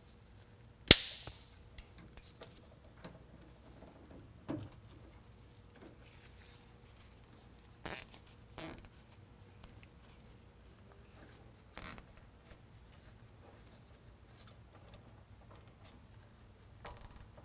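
A sharp snip about a second in as the nylon air line is cut to length, then scattered faint clicks and rustles as the line is pushed into its T-fitting and zip ties are tightened along the frame.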